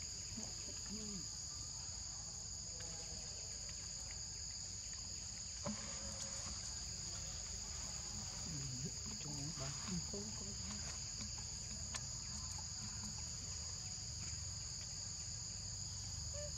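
Steady chorus of insects, a continuous shrill drone pitched in two high bands, with a few faint clicks and soft low sounds around the middle.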